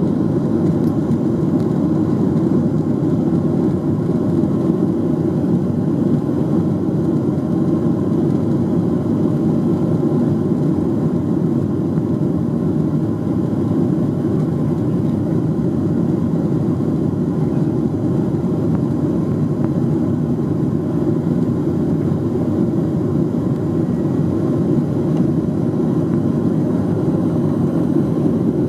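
Steady cabin noise of a Boeing 737-800 in its initial climb after takeoff, heard from inside at a window seat: the CFM56-7B turbofans at climb power and the rush of air past the fuselage, a deep, even drone.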